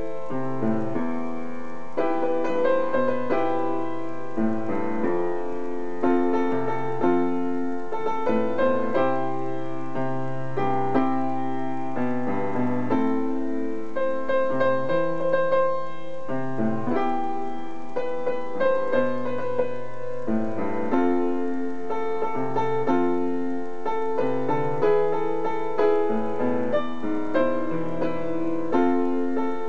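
Upright acoustic piano playing a solo arrangement of a pop ballad: a melody over sustained chords and a bass line, with notes struck at a steady, regular pace.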